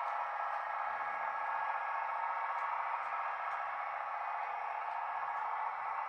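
DCC sound decoder in a Bachmann OO gauge Class 158 Sprinter DMU model, playing its diesel engine sound through the model's small speaker: a steady hum with no deep bass and a few faint ticks.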